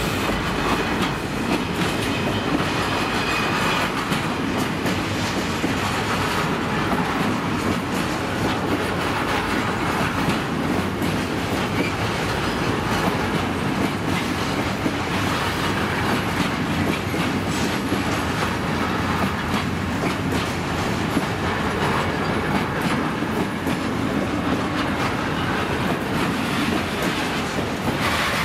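Loaded freight-train flat wagons rolling past: a steady rumble and clatter of steel wheels on the rails.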